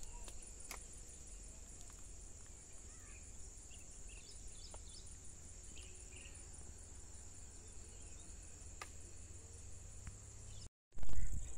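Insects droning steadily at a high pitch across a field, with scattered short bird chirps and a low steady rumble underneath. Near the end the sound drops out for a moment and comes back louder.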